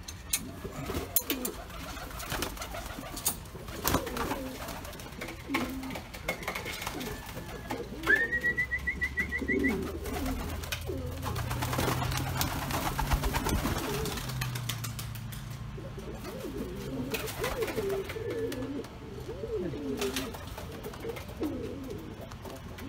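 Domestic buchón pouter pigeons cooing, low wavering coos repeated over and over, with a few light clicks. A brief high rising trill sounds about eight seconds in.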